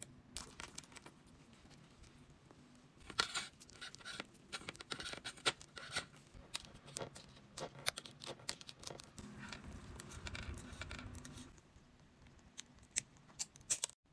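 Hands handling a charging cable fitted with a spiral plastic cable protector, making small plastic clicks and scratches: a dense run of clicks from about three to seven seconds in, a softer rustle a little later, and a few sharp clicks near the end.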